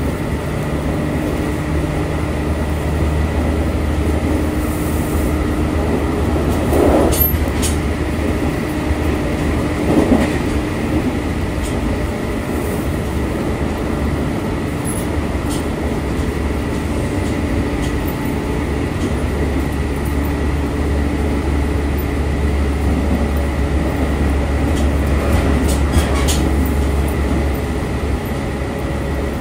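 JR Central 313 series electric train running along the Tokaido Line: a steady rumble of wheels on rail, with motor tones that come and go. There are brief louder moments about seven and ten seconds in.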